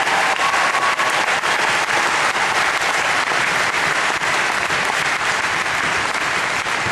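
Large crowd applauding steadily: a dense, even wash of many hands clapping.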